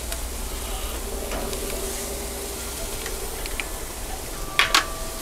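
Ribeye steaks sizzling steadily on the hot grates of a gas grill. Near the end come two sharp metallic clicks from the steel tongs.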